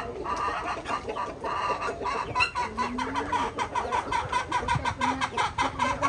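Chickens clucking, many short calls overlapping in a rapid, continuous chatter.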